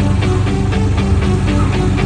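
Background rock music: electric guitar, bass and drums with a steady beat, no vocals.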